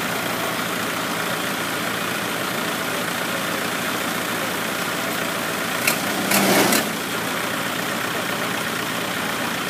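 Kubota L5018 tractor's diesel engine running steadily as the tractor moves slowly forward. About six seconds in there is a click and then a short, louder burst lasting about half a second.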